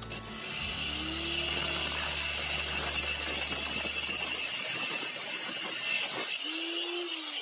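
Woodworking power tool running steadily.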